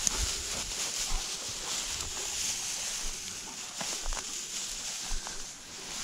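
Dry tall grass swishing and rustling as someone wades through it, with irregular low thumps from footsteps and wind on the microphone.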